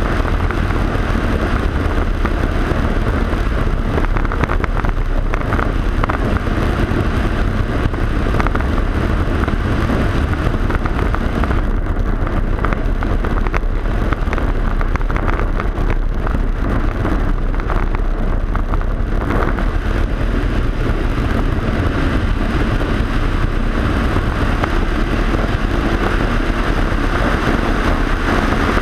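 Single-engine Cessna's piston engine and propeller running steadily in flight, heard from a camera mounted outside on the tail, with rushing wind over it. The higher part of the noise eases for several seconds in the middle and then comes back.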